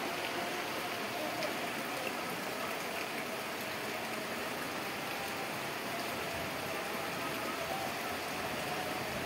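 Heavy rain falling steadily onto pond water, an even hiss of drops on the surface.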